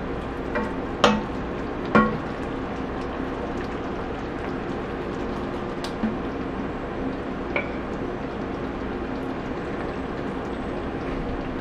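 Dry curry cooking in a pan on the stove, a steady sizzle with a few sharp clicks of a utensil against the pan, the loudest about one and two seconds in.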